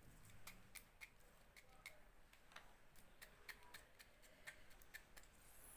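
Near silence with faint, irregular clicks, two or three a second.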